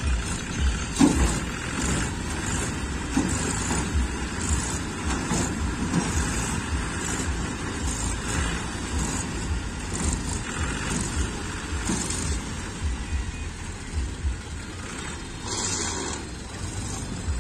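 Mahindra 265 tractors' diesel engines running, with an uneven low beat from the engine firing.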